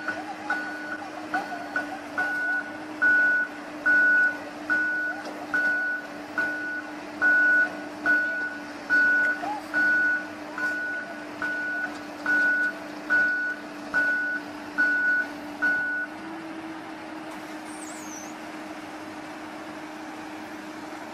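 Tracked excavator's travel alarm beeping a little more than once a second over its running engine as the machine crawls down off a flatbed truck; the beeping stops about three quarters of the way through while the engine keeps running.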